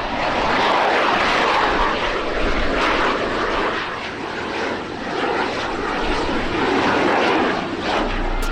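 Fixed-wing airplane engine noise: a steady rushing drone that swells and eases a little.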